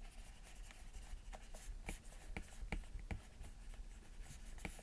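Stylus scratching and tapping on an iPad's glass screen in short quick strokes, drawing small tufts of hair; faint, with a series of light ticks as the nib meets the glass.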